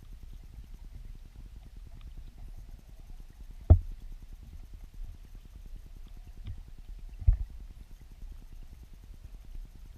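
Muffled underwater sound of a river weirpool picked up by a submerged camera: a low rumble of moving water with a fast, steady crackle. Two sharp knocks stand out, a little under four seconds in and again about three and a half seconds later.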